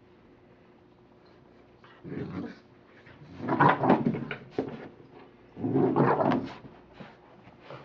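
American Pit Bull Terrier puppy growling in play as it worries a stuffed toy. A short bout comes about two seconds in, then two longer, louder bouts.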